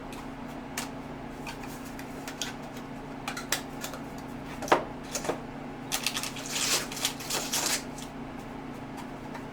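Unboxing parts and packaging being handled: scattered clicks and taps, with a run of wrapping rustling from about six to eight seconds in. A steady low hum runs underneath.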